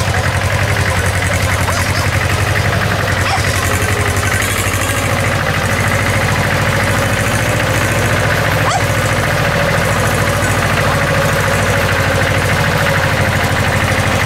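Yanmar YM2700 small diesel tractor engine running steadily with an even, rapid pulse as the tractor pulls a loaded rice trailer at low speed; its note deepens a little about five seconds in. A single click near the middle.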